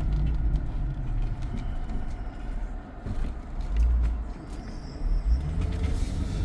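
Car driving along, a low, uneven rumble of engine and road noise.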